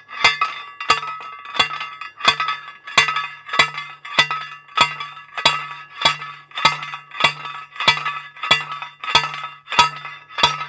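A fence post being driven into the ground with steady, evenly spaced blows from a metal driver, about one and a half strikes a second. Each strike has a bright metallic ring.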